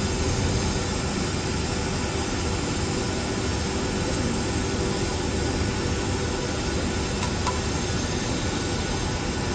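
Steady, even machine hiss and hum from a running PCT pressure-cooker test chamber that is heating up toward its set temperature.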